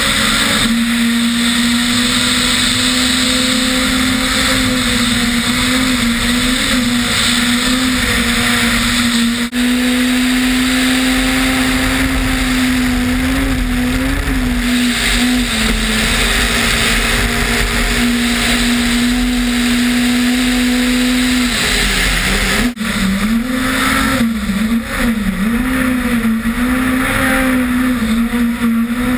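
Ford Fiesta S2000 rally car's 2.0-litre four-cylinder engine running at high revs, held at a nearly steady pitch for long stretches over a rush of wind and tyres on a snow-covered road. Over the last several seconds the revs dip and rise repeatedly as the driver lifts off and gets back on the throttle.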